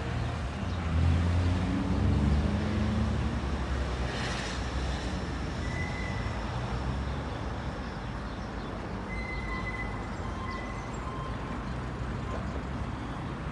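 Street traffic: a motor vehicle passes close about a second in, its engine pitch rising as it accelerates, then a steady hum of traffic.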